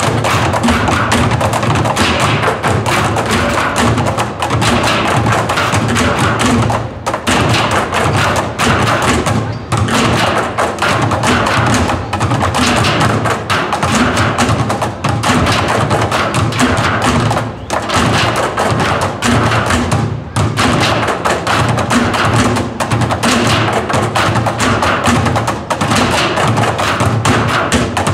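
Percussion ensemble beating with drumsticks on metal oil drums and plastic barrels, playing a fast, dense rhythm, with a few brief breaks.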